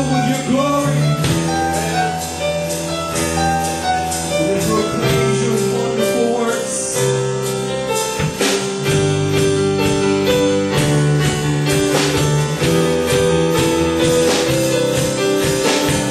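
Live worship band playing: keyboard chords and electric guitar over a drum kit with regular beats and cymbal strikes.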